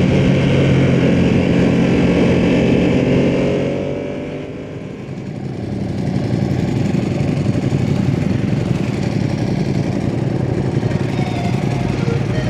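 Ducati sportbike engine running under the rider, loud and steady for the first few seconds. Its pitch then eases down and the sound drops away about four seconds in as the throttle is rolled off. After that it settles into steadier running with more road and wind rush.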